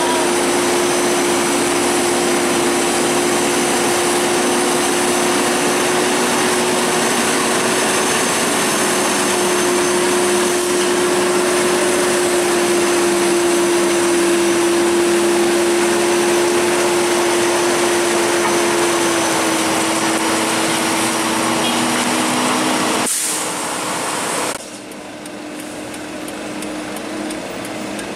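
Heavy diesel truck engine running in a steady drone at an even pitch, over a constant hiss. About 23 seconds in the sound cuts off abruptly and is replaced by a quieter drone.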